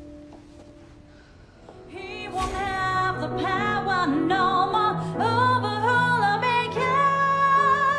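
A woman singing a slow song with a wavering, vibrato-laden voice over instrumental accompaniment. It begins about two seconds in, after a quiet start.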